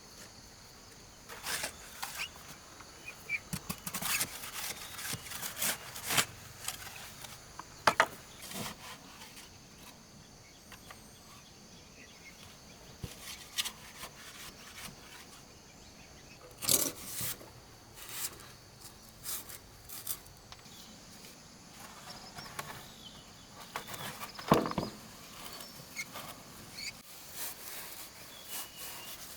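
Scattered knocks and scraping sounds of hand work, a few sharper knocks standing out, over a steady high insect drone.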